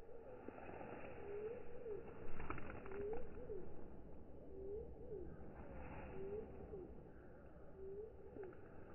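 A dove cooing in a steady series of short, low, hooked coos, about one a second, with a couple of sharp clicks about two and a half seconds in.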